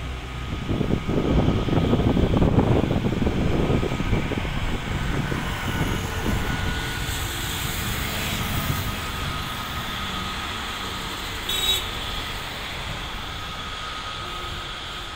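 Airbus A320-family airliner's jet engines running on the runway ahead of takeoff: a steady rumble with a high whine, loudest in the first few seconds. A brief high chirp about three quarters of the way in.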